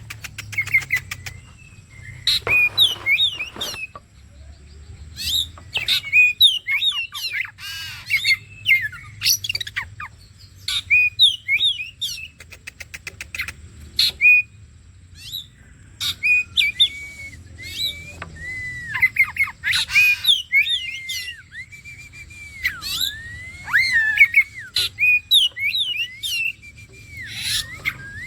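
Oriental magpie-robin (kacer) singing in full song: a long, varied run of clear whistled slurs that rise and fall, buzzy notes and several fast rattling trills, phrase after phrase with only short pauses.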